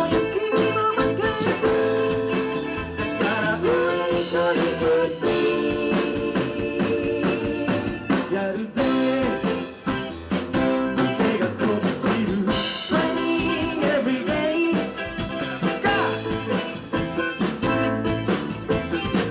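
Live band playing a song at full volume: drum kit, electric guitars and keyboard, with a lead singer's voice.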